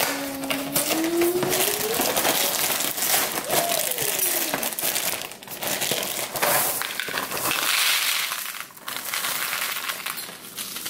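Dry cereal being poured from the box's crinkling plastic liner bag into plastic bowls, the pieces rattling into the bowl.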